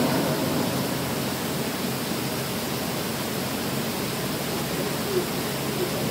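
Steady rushing noise inside a parked car's cabin, even from low to high pitch, with a small blip about five seconds in.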